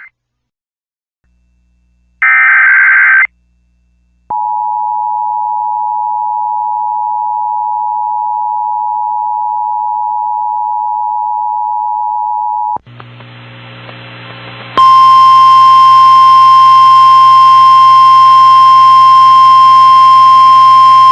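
Emergency Alert System signals. A warbling data burst of about a second is followed by the two-tone attention signal, held steady for about eight seconds. After a brief stretch of radio static, a loud steady single-tone NOAA Weather Radio alert tone starts about fifteen seconds in, signalling an incoming tornado warning.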